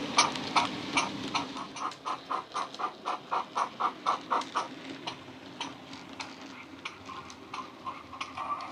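Steam locomotive exhaust chuffs from a DCC sound decoder, played through a small speaker in the tender of a Bachmann model of City of Truro: an even beat of chuffs, about five a second in the middle, that grows fainter and sparser over the second half as the model runs away round the layout.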